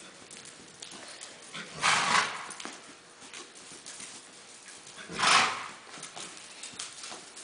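Horse trotting on sand footing, a light patter of hoofbeats, with two louder rushing sounds about half a second each, roughly two and five seconds in.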